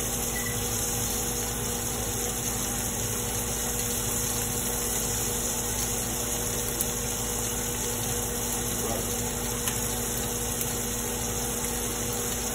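Steady machine hum with a low, even drone and a constant hiss.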